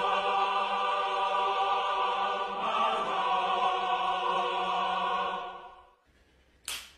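A heavenly choir sound effect: one long sung 'aah' chord, held steady and then fading out about five and a half seconds in. A short click near the end.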